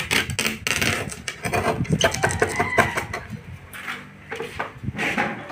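Steel angle scraping and knocking along the edge of a freshly glued HPL laminate sheet to trim off the overhang: a rapid, irregular run of scrapes and metallic clicks, with a brief lull about four seconds in.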